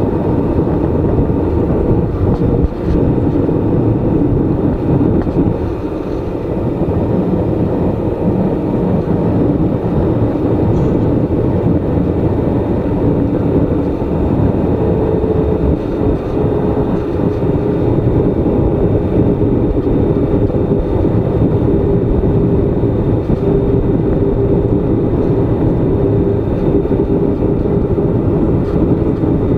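Airliner cabin noise: the jet engines and rushing air make a steady, deep noise, with a faint hum that comes in about halfway through.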